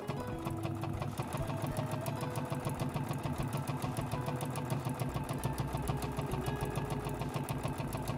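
JUKI HZL-EX7 home sewing machine stitching along a fabric edge at a steady speed: a rapid, even needle rhythm over a low motor hum, starting up abruptly.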